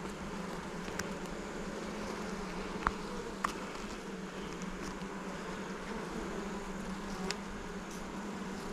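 A honeybee colony buzzing steadily around an opened hive, with a few light clicks scattered through it.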